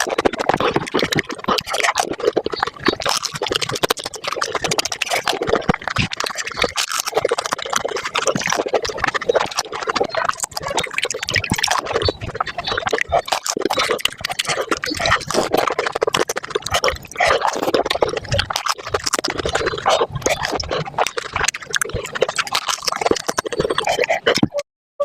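Pani puri being eaten close to the microphone, sped up: rapid crunching of the hollow puri shells and wet slurping and chewing of the spiced water, packed into a fast stream of clicks. It breaks off in a short gap near the end.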